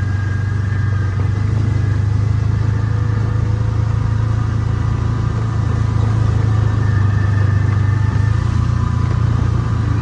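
Side-by-side utility vehicle's engine running steadily while driving, a low drone that grows slightly louder past the middle.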